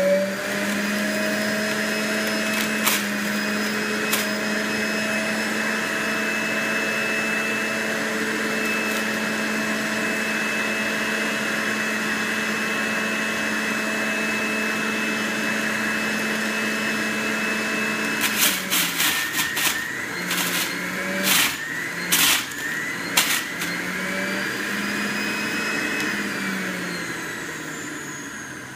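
Breville BJE510XL centrifugal juicer motor running with a steady whine as leftover pulp is re-juiced. About two-thirds through, the feed pusher knocks in the chute several times and the motor's pitch dips under the load. Near the end the motor winds down.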